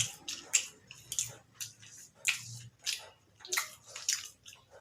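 Close-up wet chewing of a mouthful of chicken biryani: a string of short, irregular smacking clicks from the mouth, about two to three a second.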